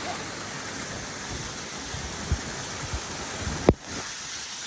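Steady rush of a waterfall's falling water, with a few low bumps and one sharp knock about three and a half seconds in.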